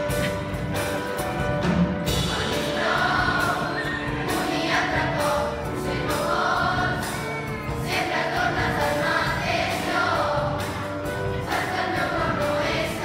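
Children's school choir singing in unison with grand piano accompaniment, the voices coming in about two seconds in over the piano's held notes.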